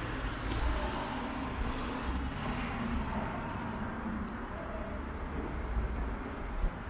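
Steady road traffic on a busy city avenue: cars passing with a continuous low rumble and hiss.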